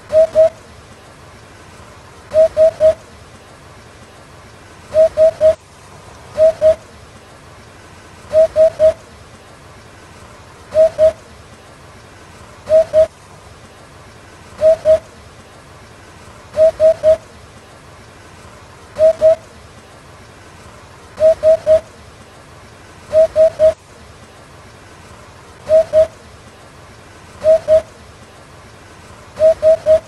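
Eurasian hoopoe giving its soft, low 'oop-oop' hooting call, each burst two or three quick notes, repeated about every two seconds.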